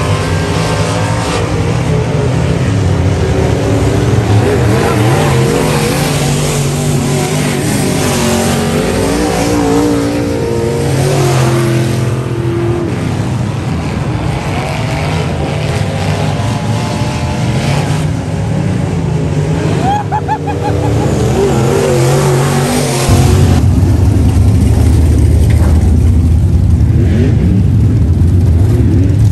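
Dirt-track race car engines running laps, the pitch rising and falling as they accelerate and back off. About three-quarters of the way through, the sound jumps to a much louder, close, steady deep engine rumble: a race car idling at close range.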